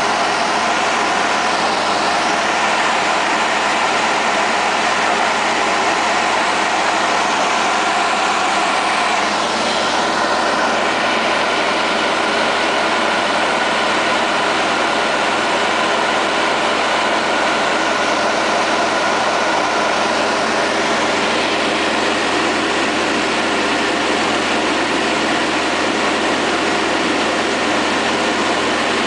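Van's RV-9 light aircraft in flight, heard from inside the cockpit: the steady drone of its piston engine and propeller, mixed with rushing air, unchanging throughout.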